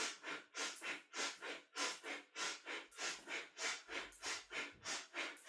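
A woman's forceful, rhythmic yoga breathing, fast inhale-exhale whooshes at about three a second, each breath paced to a reach-forward, grab-back arm movement.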